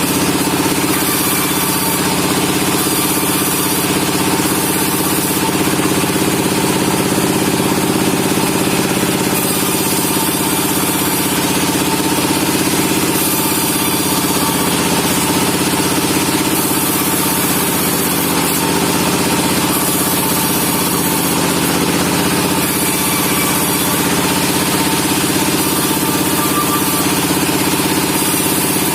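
Sawmill machinery running steadily, a constant drone with a steady hum and no pauses.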